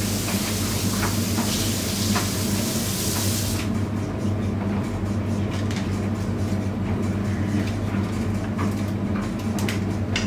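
Siemens front-loading washing machine running, its drum turning a load of laundry with a steady low hum. A hiss runs alongside it and cuts off suddenly about three and a half seconds in, leaving the hum and a few light clicks.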